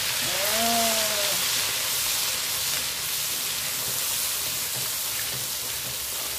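Ground peanut and spice paste sizzling steadily in hot oil in a wok as it is stirred with a wooden spatula. Near the start a short, voice-like sound rises and falls over about a second.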